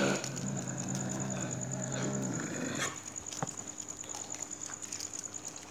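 A dog growling low and steadily for about two and a half seconds, then falling away.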